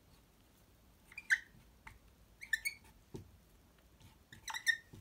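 Dry-wipe marker squeaking on a whiteboard as numbers are written, in three clusters of short high squeaks, with a soft tap of the pen tip between them.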